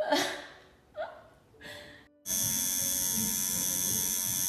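Three short noises that die away quickly, then, about two seconds in, an electric tattoo machine starts up and buzzes steadily.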